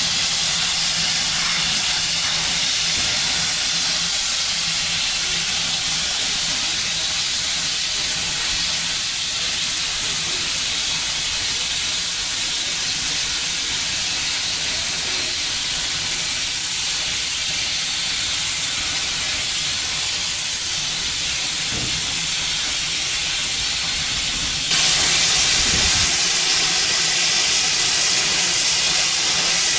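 Steady steam hiss from a standing steam train, GWR Modified Hall 4-6-0 No. 6960, with steam escaping at the steam-heating connection between the tender and the carriages. The hiss jumps louder about 25 seconds in.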